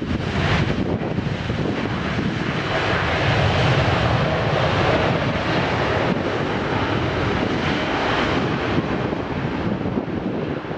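Jet airliner engines running loud and steady, swelling about three seconds in.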